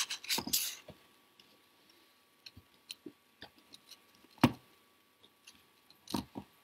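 Hands working macramé cords on a fabric-covered work pillow: a brief rustle at the start, then scattered light taps and clicks, the loudest about four and a half seconds in and two more near the end.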